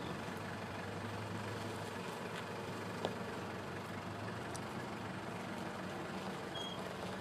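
A vehicle engine idling, a steady low hum, with a faint click about three seconds in.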